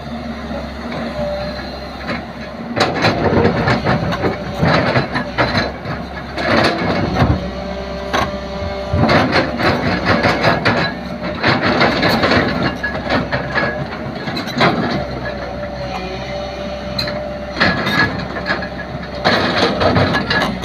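JCB 3DX backhoe loader's diesel engine running steadily under load while the bucket and linkage clank and scrape in repeated bursts of knocks and rattles.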